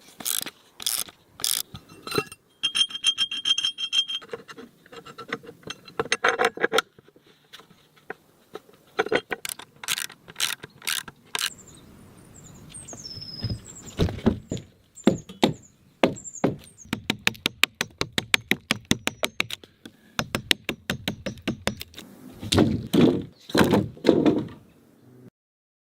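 Hand-tool work on support posts and their metal fittings: a long, irregular run of sharp knocks and clicks, with a fast, even clicking about seventeen seconds in. Faint high chirps sound about twelve to sixteen seconds in.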